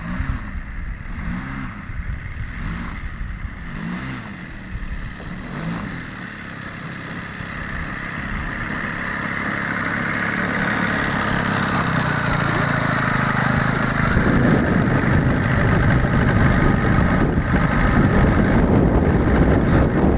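Engine of a large radio-controlled Marchetti SF260 model plane running at low throttle as it taxis on grass. For the first several seconds its pitch swells up and down about every second and a half, then the sound grows steadily louder as the plane comes closer.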